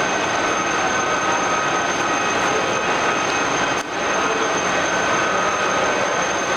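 All-geared radial drilling machine running: a steady mechanical noise with a high whine from the gearing and motor. It dips briefly about four seconds in.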